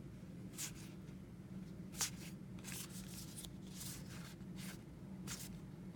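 2018 Topps Heritage High Number baseball cards being flipped through one after another by hand, a soft swish of card sliding over card every half second or so, with one sharper snap about two seconds in, over a low steady hum.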